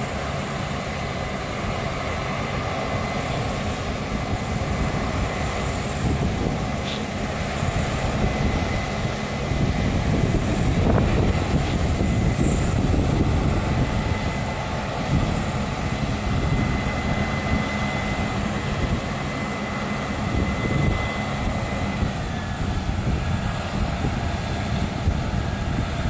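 Case IH 8230 combine harvester running at work: a steady engine drone with a thin high whine over it, swelling louder for a few seconds partway through, with wind noise on the microphone.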